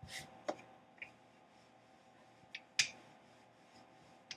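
Scattered light clicks and taps, about six in four seconds with the loudest nearly three seconds in, from pastry dough and kitchen tools being handled on a countertop.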